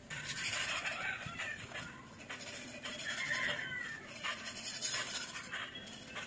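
A kitten meowing repeatedly, against the scratchy scraping of a hand tool on a crumbling painted wall.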